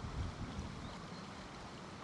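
Wind buffeting the microphone with a low rumble, strongest in a gust just after the start, over the steady rush of a river in spate.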